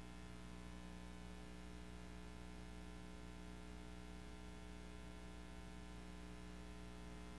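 Faint steady electrical hum over low hiss, unchanging throughout: quiet room tone with no distinct event.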